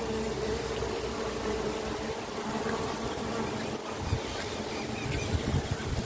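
Agitated uruçu stingless bees buzzing at the hive, one steady buzz that fades away in the first couple of seconds, over a faint hiss. From about four seconds in come low rumbles of wind or handling on the microphone.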